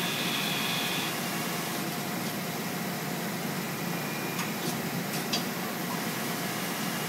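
Willemin Macodel W408B five-axis CNC mill milling stainless steel under flood coolant: a steady hiss of spraying coolant and machine noise, with a high whine from the cut fading about a second in. A few sharp ticks come near the middle.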